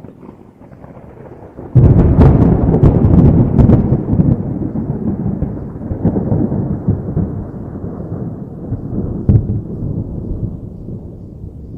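A close thunderclap: a soft rumble, then a sudden loud crack about two seconds in with crackling for a couple of seconds, followed by a long rolling rumble that slowly fades, with one more sharp crack near the end.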